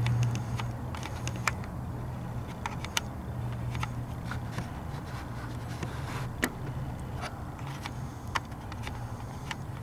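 Scattered light clicks and scrapes of hand tools and parts being handled in the engine bay during a spark plug change, over a steady low hum.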